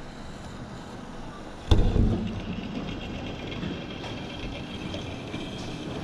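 HO scale model train running along its track, a steady rolling rumble with a high motor whine, picked up close by the camera riding on the train. A single sudden loud thump comes about two seconds in.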